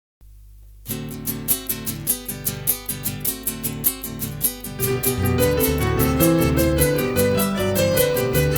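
Instrumental introduction of a chacarera, Argentine folk music: a steady strummed rhythm starts about a second in, and near five seconds in a keyboard melody and bass line join and the music grows louder.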